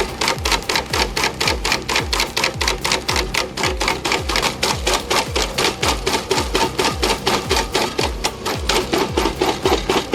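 Background music with a steady driving beat: a low kick drum about twice a second under fast, sharp clicking percussion.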